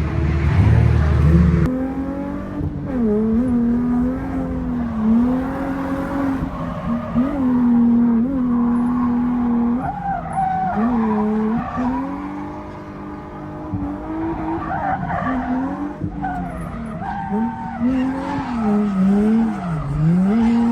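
A drift car's engine revving up and down over and over as it is thrown through slides, with tyre-skid noise over it. There is a deep drop in revs near the end.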